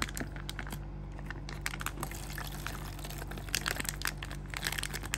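A thin plastic pouch crinkling and crackling in the hands as water is squeezed out of it and trickles into the plastic tray of a self-heating rice bowl. The crackles come thickest in the second half.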